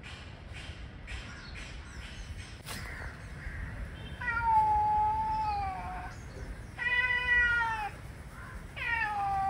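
Tomcats in a standoff, yowling: three long, drawn-out calls in the second half, each wavering and dropping in pitch.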